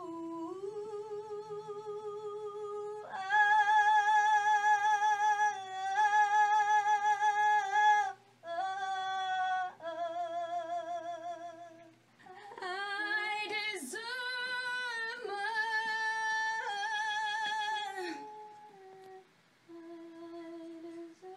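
A voice singing a wordless melody in long held notes with wide vibrato and a few sliding pitches, broken by short pauses.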